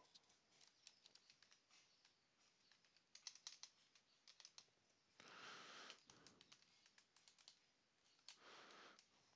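Quiet typing on a computer keyboard, a run of key clicks, with two short hisses of about half a second each, around five and eight seconds in.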